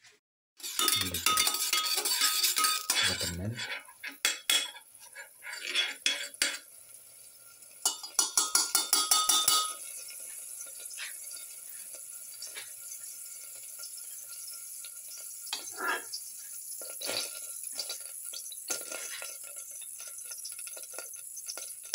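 Metal ladle scraping and clanking against a stainless steel pan as ghee is put in, with a quick run of scraping strokes about eight seconds in. From about ten seconds in, a steady faint sizzle of ghee heating in the pan, with a few light clinks.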